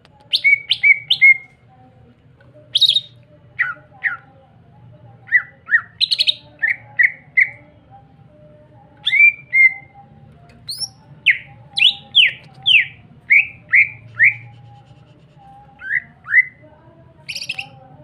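Male green leafbird (cucak ijo) singing: short, clear whistled notes that slide down in pitch, some in quick runs of two to seven and some single, with pauses between.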